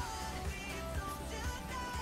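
Background pop music with a bass line and a melody.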